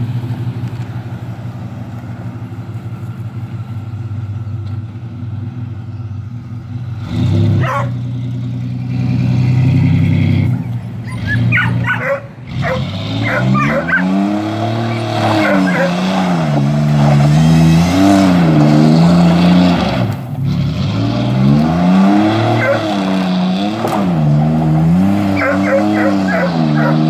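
Chevy pickup's V6 engine idling, then revved hard, its pitch rising and falling again and again as the truck spins donuts in loose dirt.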